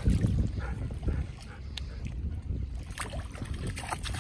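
Gentle sea water lapping against seaweed-covered rocks, under a steady low rumble of wind on the microphone, with a few faint clicks.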